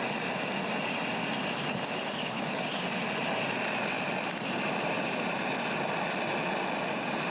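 Swedish torch, a cedar log split with a cross cut, burning strongly with a steady rushing of flames and no distinct crackles.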